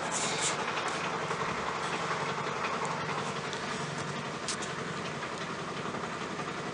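Domestic cat purring: a steady, rapidly pulsing low rumble, with a brief click about four and a half seconds in.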